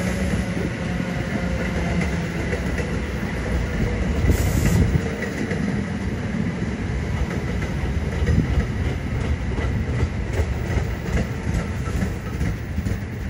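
Passenger train running past: a steady rumble, with a short hiss about four seconds in and wheels clicking over the rails in the second half.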